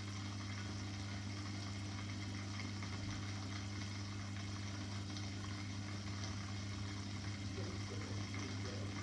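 Aquarium pump humming steadily with a faint wash of moving water.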